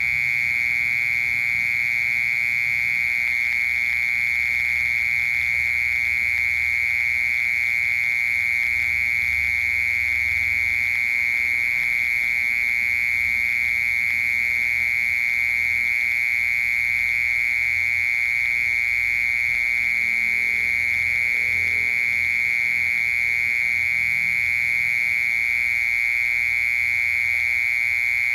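Cricket singing a loud, unbroken high-pitched trill that holds one steady pitch without pause.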